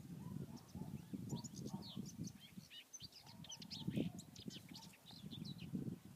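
A songbird singing a fast, varied song of short chirps and trills, with a brief pause about half a second in. Beneath it runs an irregular low rumble.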